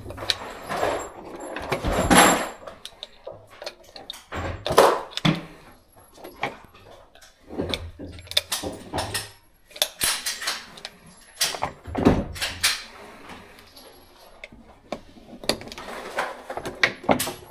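Muffled gunshots and sharp knocks at an indoor shooting range, coming at irregular intervals, with a few stronger bangs several seconds apart and lighter clatter between them.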